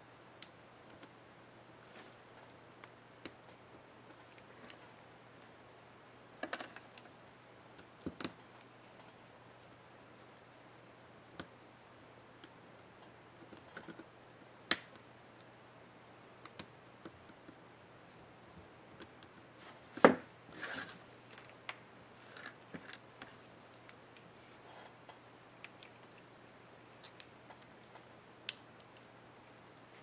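Small plastic clicks and scrapes from the scissor retainer clips of an HP Mini 5101 laptop key being worked with a small tool and the keycap being handled: scattered single clicks with short scratching stretches, the sharpest click about two-thirds of the way through.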